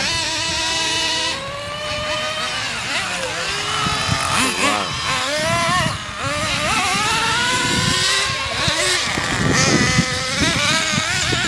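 Nitro RC car engines (small glow-fuel two-strokes) revving hard, the pitch rising and falling as the cars accelerate and slow. More than one engine sounds at once, their pitches crossing.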